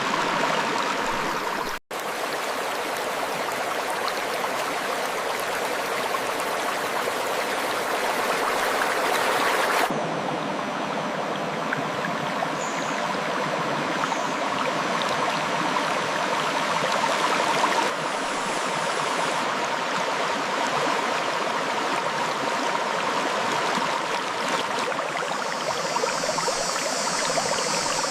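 River water flowing and rushing over rocks, a steady dense rush. It cuts out for an instant about two seconds in, and its tone shifts abruptly twice, about ten and eighteen seconds in.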